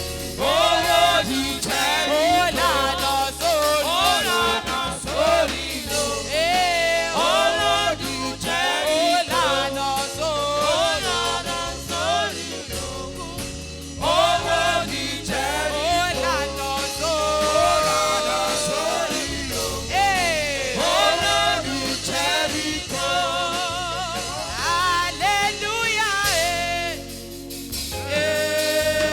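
Live gospel singing with band accompaniment: voices carrying a melody with sliding runs over a steady bass line.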